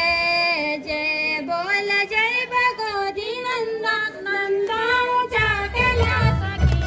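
Women singing a Garhwali jagar together in a high, held melody with gliding notes; about five seconds in, low drumming comes in beneath the singing.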